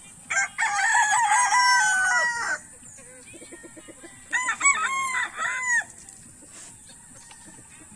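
Gamecock rooster crowing twice: a long crow of about two seconds, then a shorter crow about four seconds in.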